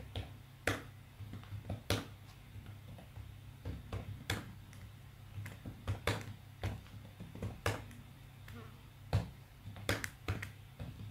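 Typing on a computer keyboard: single keystroke clicks at an uneven pace, a few a second, with short pauses between words.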